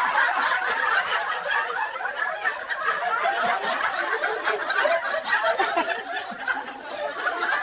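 A crowd laughing and chuckling, many voices overlapping in a steady jumble.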